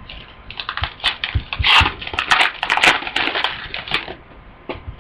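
Wrapper of a 2010 Panini Gridiron Gear football card pack being torn open and crinkled by hand, a crackling burst of about three and a half seconds.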